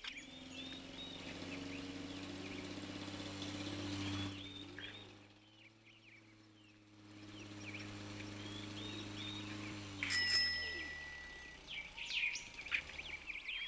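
Small birds chirping over a steady low hum, both dropping away for a couple of seconds in the middle, then a sharp click with a brief high tone about ten seconds in.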